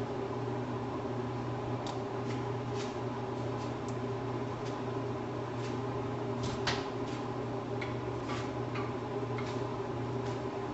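Steady kitchen appliance hum, like a fan or motor, with scattered light clicks and ticks, several of them close together about six to seven seconds in.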